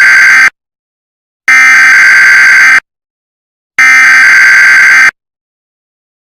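Emergency Alert System SAME header: loud, buzzy bursts of digital data tones, the end of one burst and then two more, each about a second and a quarter long with about a second between them.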